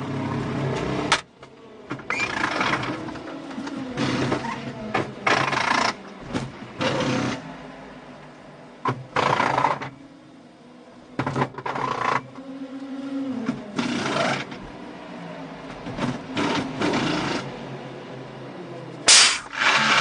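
Pit stop of an Audi R18 heard from inside its cockpit: repeated short bursts of rattling air-tool noise, about a second each, from the crew working on the stationary car, with a faint low hum in between. The loudest burst comes near the end.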